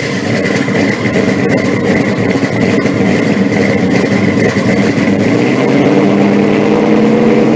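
Car engine running steadily, with a steady high whine over its low rumble.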